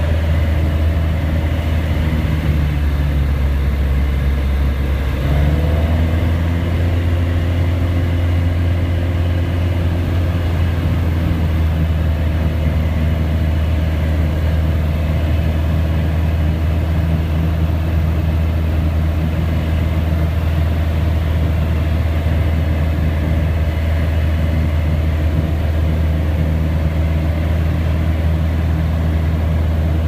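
SOCATA TB200's four-cylinder Lycoming piston engine and propeller running steadily, heard from inside the cockpit on approach to land. The engine note changes and grows slightly louder about five seconds in.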